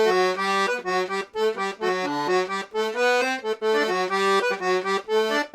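Serenellini C#/D two-row button accordion playing a quick tune on the treble side, its notes changing several times a second, with one middle reed set switched in: the drier-tuned of the two.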